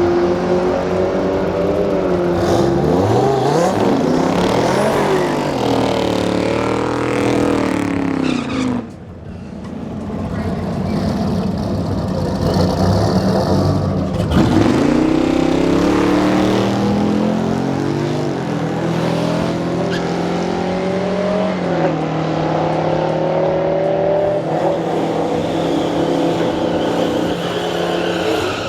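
Drag-racing car's engine revving and accelerating hard on a strip pass. Its pitch climbs and falls back repeatedly, as at gear changes, with a short lull about nine seconds in.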